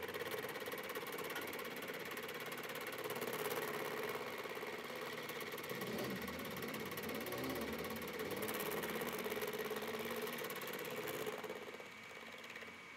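Milling machine's end mill cutting a metal block: a steady machine hum with a fast, even rasp from the cutter teeth biting the metal, which stops abruptly near the end.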